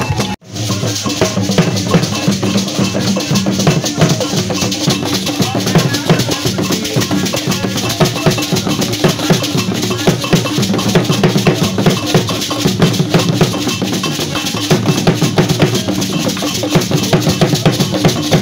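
An Ewe Vodu drum ensemble: several small peg-tensioned skin drums beaten with curved sticks and hands in a dense, fast rhythm. The sound cuts out briefly about half a second in, then the drumming resumes.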